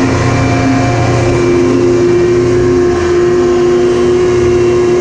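Snowmobile engine held at high revs while the sled skims across open water, a steady high pitch that creeps slightly upward, with the hiss of spray from the track.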